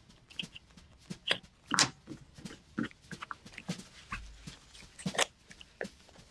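Hobby knife cutting into a leather wallet, then the leather layers pulled and peeled apart by hand: irregular short scratches and snicks, the loudest a little under two seconds in and about five seconds in.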